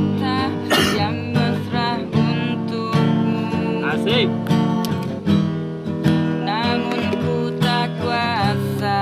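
Music with acoustic guitar strumming steady chords.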